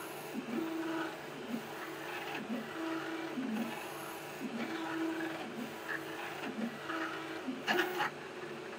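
Stepper motors of the Celeritas high-speed 3D printer whining as the print head makes quick moves across the bed. The pitch jumps to a new note with each move, and there is a short louder rattle near the end.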